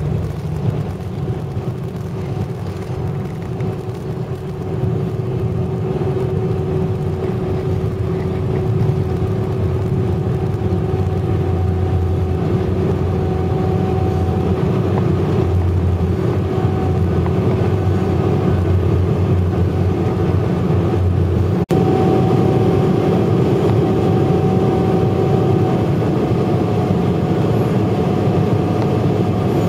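Jet airliner cabin noise during the climb after takeoff: a steady engine drone over a deep rumble, with two steady humming tones, getting a little louder about five seconds in. A momentary dropout about 22 seconds in.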